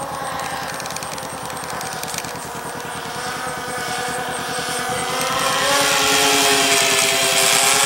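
Radio-controlled model airplane's motor running as it flies past, its pitch wavering and growing louder from about halfway as it closes in.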